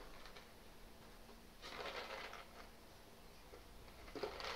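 Faint crinkling of a plastic drinks-bottle treat toy filled with dog food as a Vizsla noses and chews it, in two short bouts: about two seconds in and near the end.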